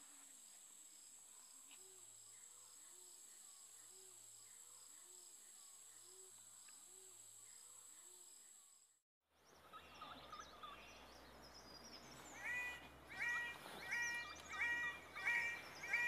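Forest bird sounds in two parts, split by a brief break. First a faint steady high insect whine with a low hoot repeating about once a second. Then, louder, a series of six ringing bird calls about two-thirds of a second apart.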